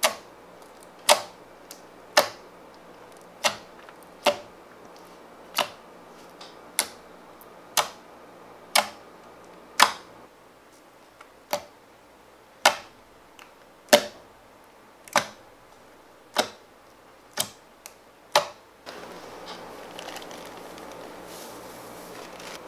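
Fingers poking into sticky clear slime mixed with gold leaf flakes, each poke giving a sharp wet pop or click, about one a second. The pops stop near the end, leaving a soft steady hiss.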